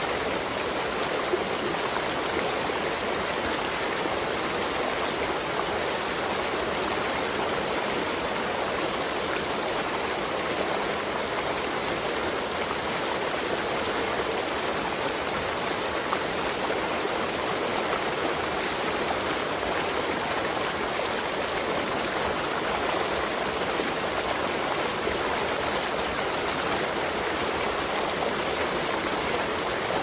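Rushing water: a steady, even hiss with no rise and fall.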